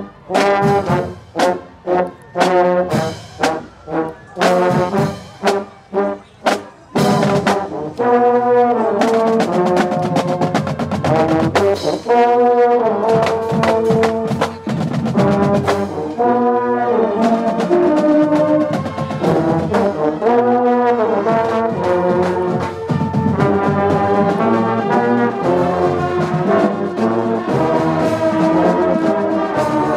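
Marching band of snare drums and brass horns playing. For the first several seconds it hits short, separated chords about twice a second, then from about eight seconds in the brass holds a continuous melody over the drums.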